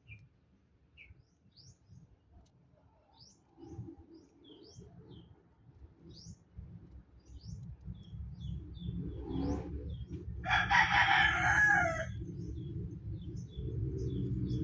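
Small birds chirping in short rising notes, then a rooster crows once for about a second and a half, the loudest sound, over a low rumble that grows louder through the second half.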